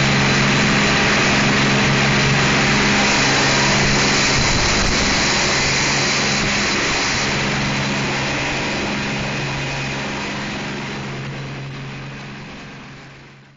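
Twin 600 hp Cummins marine diesels running steadily with the boat under way, a deep even drone over a broad hiss. The sound fades out over the last few seconds.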